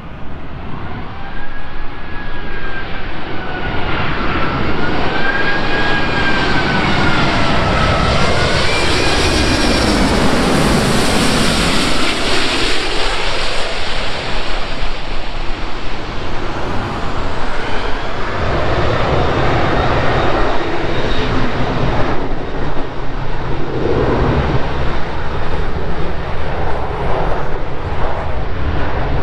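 Emirates Airbus A380-842 with four Rolls-Royce Trent 900 engines on final approach, passing low overhead. A wavering engine whine builds into a roar that peaks about ten to twelve seconds in, then fades to a steady rush.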